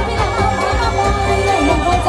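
Live band music from a Thai luk thung stage show, with sustained instrument tones over a steady beat.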